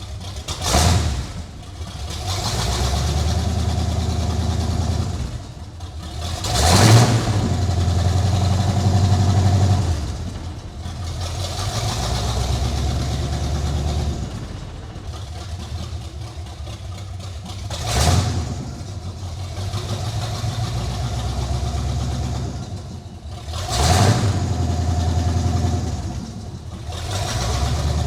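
C4 Corvette's V8 engine running with the drive wheels spinning in gear. It is revved in a short surge four times, each time then held at a steady speed for a few seconds before easing off, as the repaired manual transmission and rear end are tried out.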